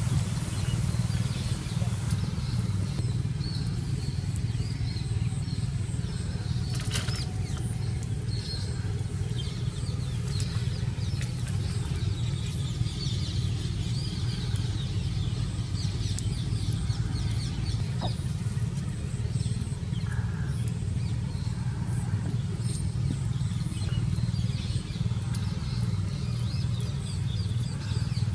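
A steady low hum, even in level throughout, with faint scattered high chirps above it.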